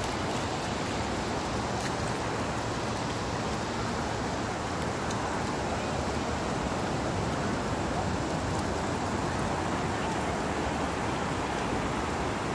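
Ocean surf washing up the shore: a steady rushing noise.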